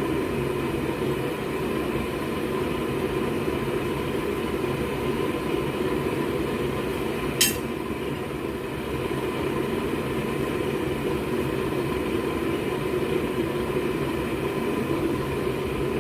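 Homemade propane forge burner running steadily at about 7 psi, a continuous rushing noise. One brief sharp click about seven seconds in.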